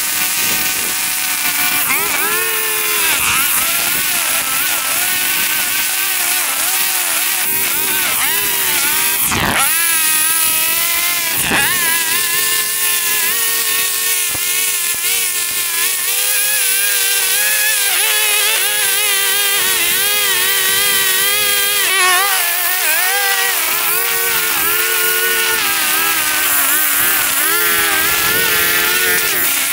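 Gasoline lawn mower engine running under load while cutting very tall, overgrown grass, its pitch dipping and recovering again and again. Two brief knocks come about ten and twelve seconds in.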